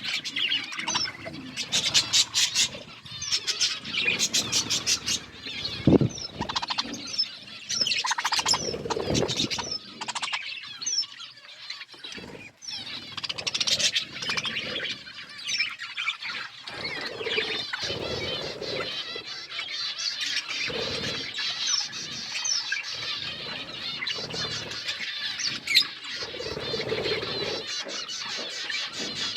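Budgerigars chirping and chattering, several at once and without a break, with quick runs of clicking notes early on and a sharp knock about six seconds in.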